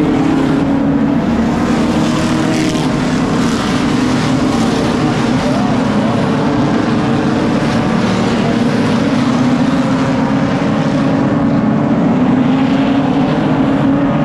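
A field of oval-track stock cars running laps together, their engines blending into a loud, steady drone that wavers a little in pitch as cars go around.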